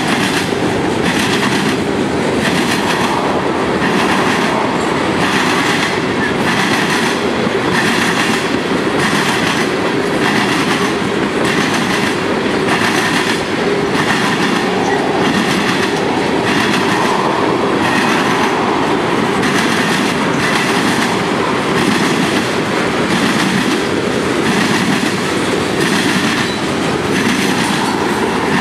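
Freight train of boxcars and tank cars rolling past with a steady rumble and a regular clacking of wheels over the rail joints.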